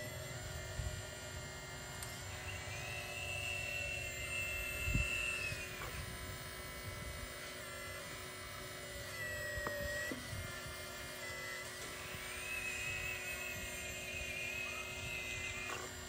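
Electric motor and hydraulic pump whine of a radio-controlled Hitachi excavator working its boom and bucket. The pitch rises as it takes load about two and a half seconds in and again near twelve seconds, and drops back between, with a single knock about five seconds in.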